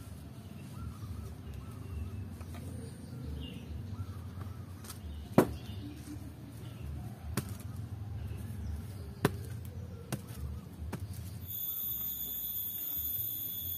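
A hand tool striking and chopping into packed earth while digging: a few sharp knocks, the loudest about five seconds in, over a low steady rumble. Near the end a steady high-pitched buzz begins.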